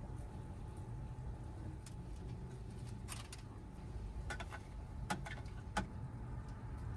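A few light clicks and knocks of kitchen things being handled during cooking, a single one about three seconds in and a quick cluster between four and six seconds, over a low steady hum.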